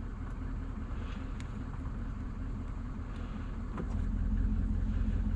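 A vehicle engine idling with a steady low rumble, a few faint ticks over it; the rumble grows a little louder about four seconds in.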